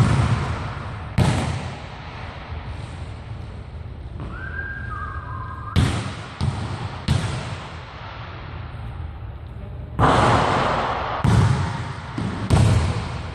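Basketball bouncing on a hardwood gym floor and striking the hoop, about eight sharp thuds at uneven intervals, each ringing on in the echo of a large hall. There is a brief high squeak about four seconds in.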